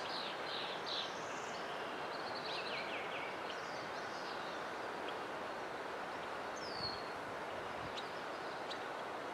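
Barn swallows twittering over a steady outdoor background hiss. A run of quick high chirps and short falling calls comes in the first three seconds, and a single falling call comes about seven seconds in.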